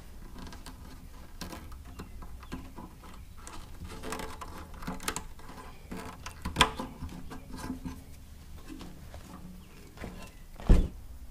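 Hands working a rubber grommet into a painted motorcycle body panel and handling the panel: irregular rubbing, rustling and small clicks, with a sharp knock about six and a half seconds in and a heavier thump near the end.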